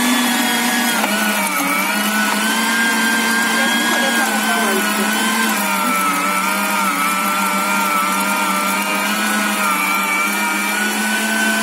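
New electric meat grinder running steadily as it grinds raw meat, its motor hum wavering and dipping slightly in pitch as the load changes.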